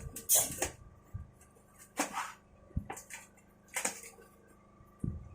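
Packaged items being handled during an unboxing, with rustling in several short bursts and quiet gaps between.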